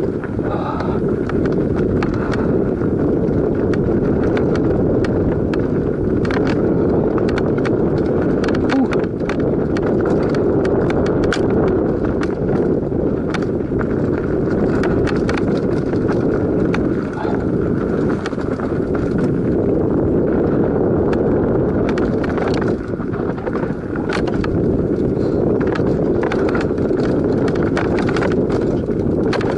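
Mountain bike descending a rough dirt singletrack at race pace: a steady rolling rumble of tyres on dirt and stones, with frequent sharp clicks and knocks as the bike rattles over the bumps.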